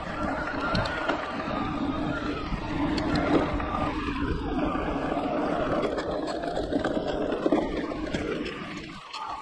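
Electric mountain bike ridden along dirt singletrack: a steady hum from the Giant Reign E+'s Yamaha-built SyncDrive motor over tyre rumble, scattered rattles and clicks from the bike, and wind on the microphone. The noise drops off briefly near the end.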